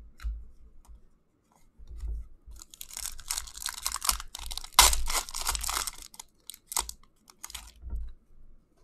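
Foil hockey card pack being torn open and its wrapper crinkled, a dense crackling that peaks with one sharp rip about five seconds in. A few soft low thumps come before and after.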